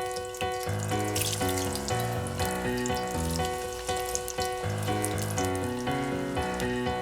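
Background music with a stepping bass line, over water running from a kitchen tap into a sink.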